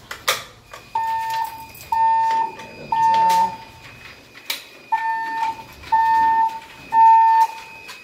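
A Siemens manual fire-alarm pull station is pulled with a sharp click, and the building's fire alarm sounds its evacuation tone: three beeps about a second apart, a pause, then three more. This is the temporal-three pattern that precedes the evacuation voice message.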